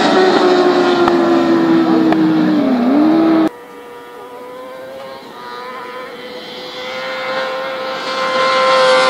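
Racing motorcycle engines at high revs on a circuit. A loud engine note falls in pitch as a bike goes by, with a brief dip about three seconds in, then cuts off abruptly. A more distant bike's engine follows, growing steadily louder near the end as it approaches.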